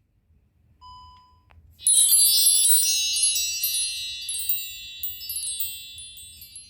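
A shimmering chime, many high bell-like tones sounding together about two seconds in and ringing away slowly over several seconds. Before it comes a short, faint tone.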